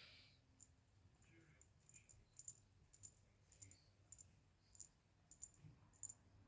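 Faint, irregular high-pitched clicks, a dozen or so spread over several seconds, against near silence.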